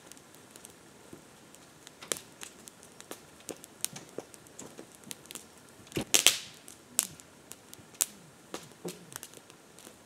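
Wood fire crackling, with scattered sharp pops and snaps at irregular intervals and a quick cluster of louder pops about six seconds in.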